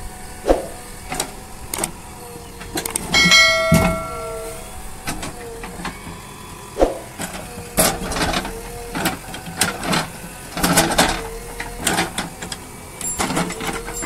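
JCB 3DX backhoe loader digging soil: its diesel engine and hydraulics run under load with a wavering tone, with repeated clanks and knocks from the bucket and arm. A brief pitched ringing sounds about three seconds in.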